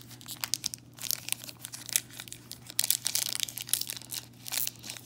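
Foil trading-card pack being torn and crinkled open by hand: an irregular run of crackling and tearing rustles.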